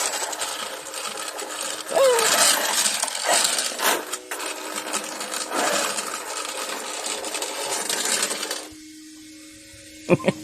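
Brushless-powered Maverick Strada XT Evo RC truck running: gritty rattling tyre and chassis noise with short rises and falls of electric motor whine, cutting off suddenly about three-quarters of the way through. Two sharp knocks come near the end.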